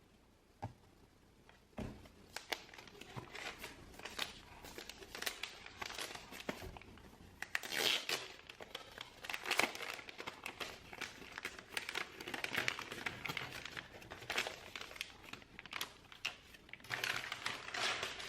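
Packaging being handled and unwrapped, with dense irregular crinkling that starts about two seconds in and comes in louder spells.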